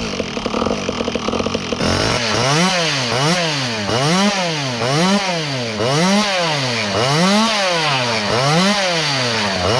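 Small two-stroke chainsaw engine, fuelled on E85 with a reworked carburettor, running unevenly for about two seconds. It is then revved up and down over and over, its pitch rising and falling about once every 0.8 s.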